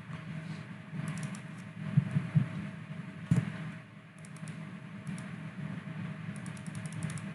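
Steady low hum of a computer, with scattered light keyboard and mouse clicks in small clusters and one sharper knock about three and a half seconds in.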